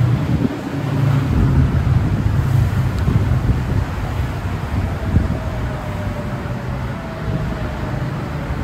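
Chongqing rubber-tyred straddle monorail train pulling into an elevated station, its rumble passing close by and easing as it slows. A faint whine falls slowly in pitch over the last few seconds as it brakes to a stop.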